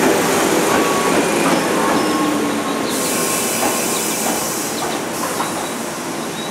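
A Seibu 4000 series electric train rolls slowly alongside the platform as it comes in to stop, its wheels rumbling on the rails with a faint squeal, gradually getting quieter. About halfway through there is a high hiss lasting about two seconds.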